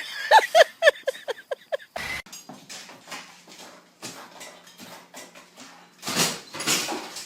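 An animal giving a quick run of about seven short calls, each falling in pitch, followed by scattered clicks and knocks, with louder rustling noise near the end.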